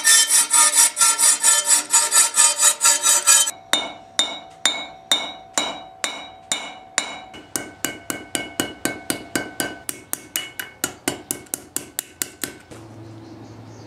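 Hammer striking steel with ringing blows. First comes a quick run of about five blows a second on a steel strip held in a vise. After a break at about three and a half seconds, separate blows on a small steel rod over an anvil ring at a different pitch, speed up from about two to three a second, and stop about a second before the end.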